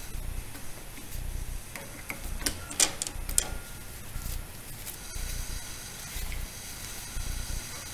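A few sharp clicks and light taps about two and a half to three and a half seconds in, like small metal parts being handled, over an intermittent low rumble.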